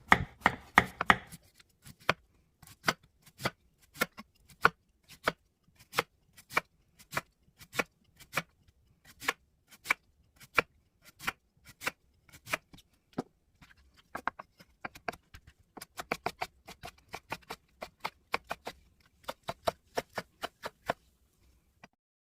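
Kitchen knife chopping radish on a cutting board: steady sharp strokes about two a second, breaking into quicker runs of cuts in the second half, then stopping shortly before the end.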